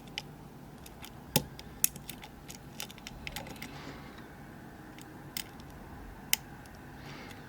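Scattered small metallic clicks and ticks of a lock pick and tension tool working the security pins inside a Kibblock euro lock cylinder, a few sharper clicks standing out at irregular intervals.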